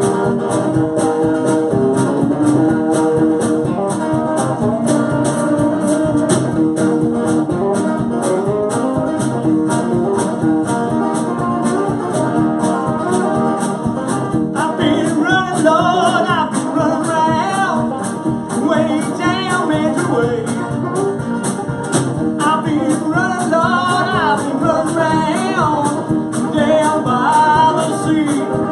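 A live country-blues band playing: acoustic and electric guitars over a steady drum beat. From about halfway, a Telecaster-style electric guitar plays a lead full of bent notes.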